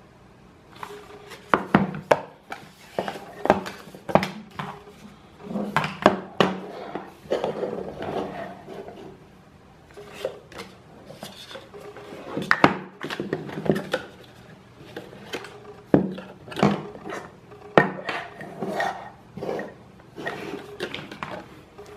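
Handling noise from the contents of a Chromecast 2 box on a wooden desk: a paper leaflet, cables and a plastic power adapter are picked up and put down. The sound is irregular clicks and knocks, with short stretches of rubbing.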